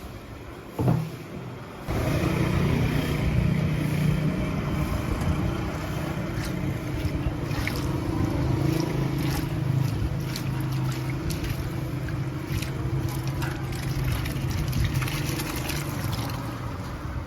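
A steady motor-like rumble with a low hum that starts abruptly about two seconds in, after a single thump, with scattered light clicks and clatter over it.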